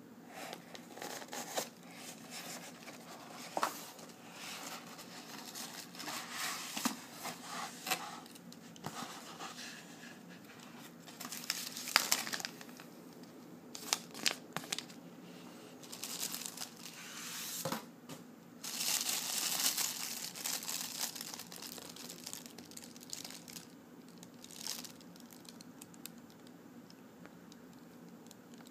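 Cardboard shipping box being opened and handled, then a clear plastic bag being crinkled as it is picked up and turned over. Irregular tearing, rustling and crinkling with sharp crackles, densest in a long stretch about two-thirds through.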